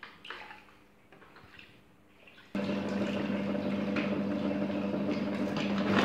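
Faint stirring and sloshing of scalded quail in the scalder pot. About two and a half seconds in, the quail plucker's electric motor starts abruptly and runs on steadily with a hum and a noisy rush.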